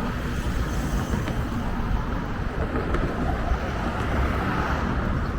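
Steady rumble of road traffic, an even wash of noise without distinct events.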